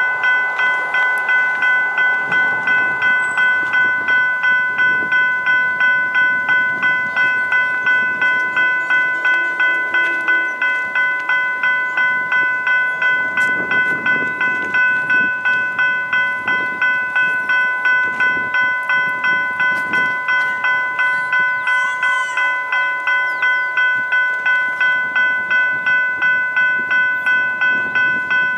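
Railway crossing warning bell ringing steadily, about two strokes a second, each stroke a bright ringing tone that decays before the next, while a steam train approaches.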